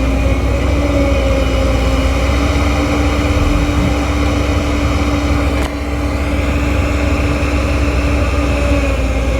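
Heavy diesel machinery engine running steadily with a deep rumble and a steady hum, with a brief dip in level a little past halfway.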